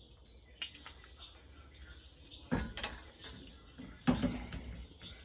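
Metal parts clanking and rattling as they are handled, with a few sharp knocks; the loudest come about two and a half and four seconds in.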